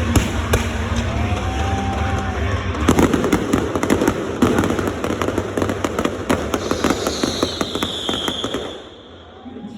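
Fireworks going off, with a low rumble at first and then a dense run of sharp crackling pops from about three seconds in that dies away near the end.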